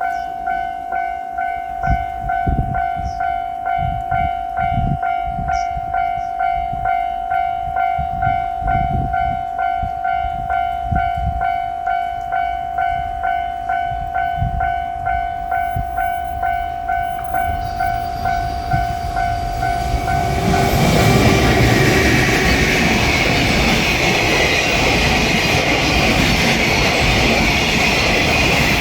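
Japanese level-crossing bell ringing its steady, evenly repeating electronic 'kan-kan' tone. About two-thirds of the way through, a JR Freight train starts passing over the crossing, and its louder, continuous rumble and wheel noise cover the bell.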